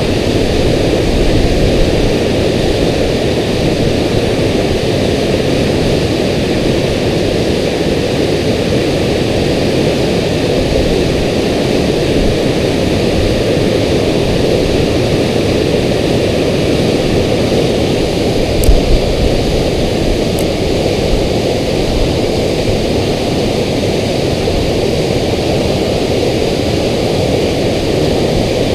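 Steady rushing of water pouring over a dam spillway, even and unbroken throughout.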